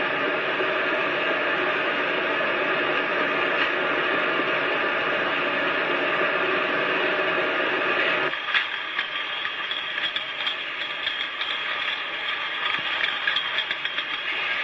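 Machinery running with a steady hum and whir. A little past halfway it changes suddenly to a lighter, rapid clicking and clattering of a mechanism.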